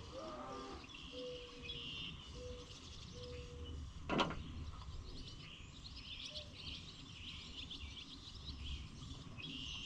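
Birds chirping and singing in the background, with a single sharp knock about four seconds in.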